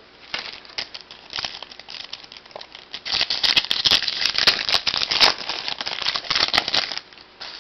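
Foil trading-card pack wrapper crinkling and being torn open by hand, lighter handling rustle at first, then a denser, louder crackle from about three seconds in until shortly before the end.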